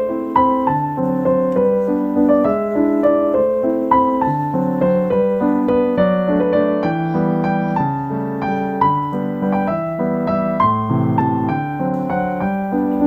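Background piano music: a melody over lower chords.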